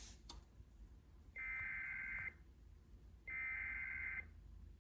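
SAME digital header from a SAGE EAS ENDEC: two bursts of buzzing two-tone data, each about a second long and about a second apart, the first starting about a second and a half in. These are the opening repeats of the coded header announcing a severe thunderstorm warning. A faint click comes right at the start.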